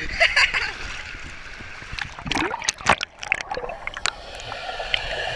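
Pool water splashing and lapping right at a camera in a waterproof housing, with a cluster of sharp splashes about two to three and a half seconds in as the camera dips under the surface.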